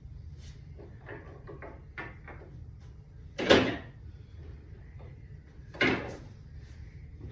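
A few light knocks, then two loud, hard clunks about two and a half seconds apart, as billiard balls are handled at a pool table.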